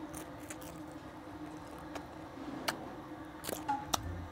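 Eating sounds: a few short, sharp wet smacks and clicks from a mouth chewing and sucking food off fingers, over a low steady hum.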